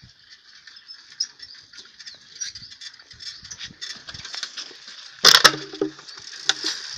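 An old bicycle rattling and clicking as it is ridden over a bumpy dirt path, then a loud clatter about five seconds in as it runs into a house wall.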